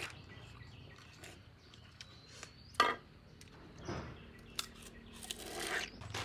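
Machete blades cutting and peeling fresh bamboo shoots: scattered scrapes and cuts, with one sharp crack about three seconds in.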